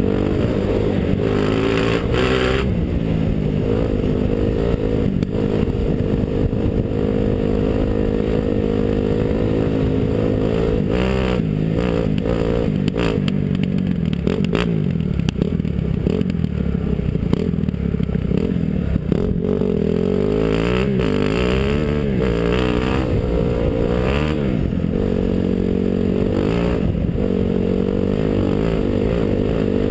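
Dirt bike engine running under way, its revs rising and falling again and again with throttle and gear changes, with scattered knocks and clatter in the middle stretch.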